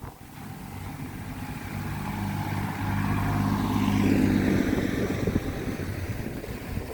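A motor vehicle driving past: its engine hum grows louder, is loudest a little past the middle, then fades away.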